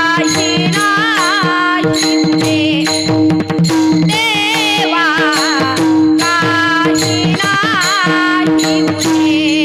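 A woman singing a Marathi Varkari kirtan melody with ornamented, wavering phrases over a steady held drone, accompanied by pakhawaj drum strokes.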